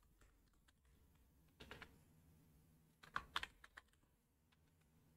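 Faint typing on a computer keyboard: a few scattered key clicks, with two short runs of keystrokes, about a second and a half in and again about three seconds in.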